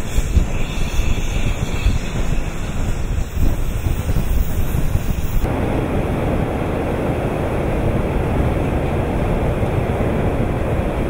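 Gusting wind buffeting the microphone, then, after a sudden change about five seconds in, the steady rushing rumble of a ship loader's conveyor pouring iron ore down its chute.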